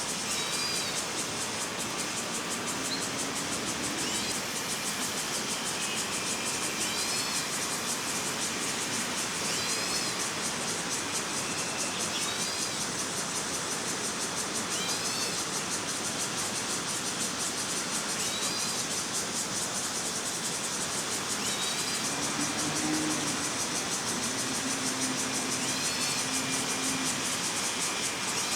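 A steady hiss of outdoor background noise with a bird's short, upswept call repeated about every two to three seconds.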